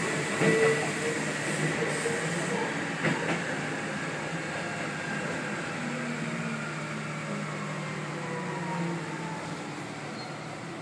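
Keikyu 800-series electric train braking to a stop along a station platform: running noise slowly fading, with a faint falling whine from the motors and gears in the second half and a couple of short knocks from the wheels over the rails in the first few seconds.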